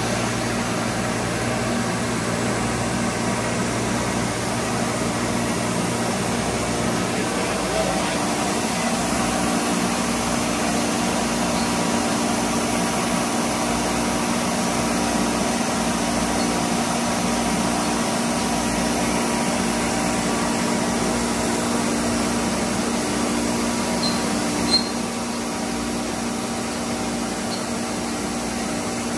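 Gantry CNC router running as it mills: a steady whirring hiss with faint constant hums from the spindle and machine. A short click about three-quarters of the way through, after which the noise is slightly quieter.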